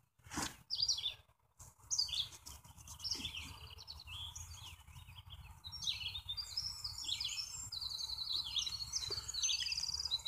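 Songbirds chirping and trilling, sparse at first and growing into a busy chorus of short repeated notes over the second half. A few soft knocks in the first couple of seconds.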